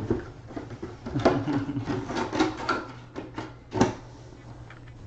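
Hands handling cards and cardboard packaging: irregular rustling with light knocks and clicks, the sharpest about a second in and again near four seconds.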